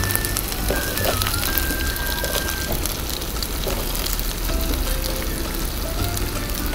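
Oil sizzling in a frying pan, with many fine crackles, as sliced button mushrooms and red onions fry with garlic and ginger. Background music with a few held notes and a steady bass plays over it.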